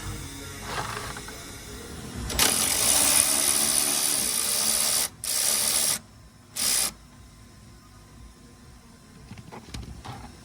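Cordless power driver running in bursts, unscrewing the T40 Torx bolt of a car door check strap: one run of about two and a half seconds, a shorter one just after, then a brief burst.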